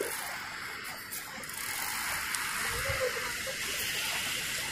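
Steady rushing of river water along the shore: an even hiss with no single event standing out.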